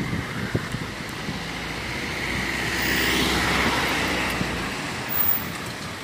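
A car passing by on the street: engine hum and tyre noise swell, loudest about halfway through, then fade away.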